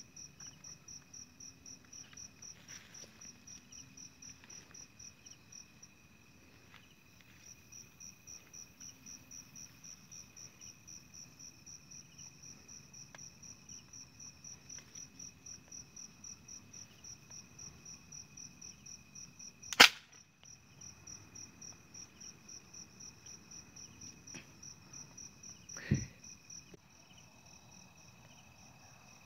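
Night insects, crickets or katydids, chirp in a rapid, evenly pulsed high-pitched rhythm over a steady high whine. About twenty seconds in comes one very loud sharp crack, and a duller thump follows near the end.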